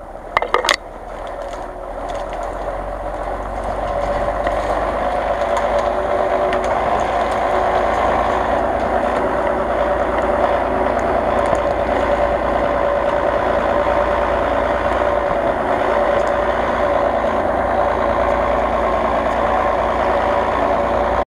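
Lifted off-road truck's engine running steadily as it crawls through snow, growing louder over the first few seconds as it approaches, then holding level. A few sharp cracks sound about half a second in.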